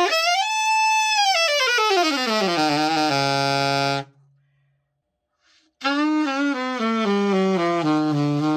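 Alto saxophone, a copy of the Yamaha YAS-62, play-tested after a full overhaul: a quick run up to a high note, then a descending scale down to the horn's lowest notes, held. After a pause of about two seconds, a second run descends again to the same low note and holds it.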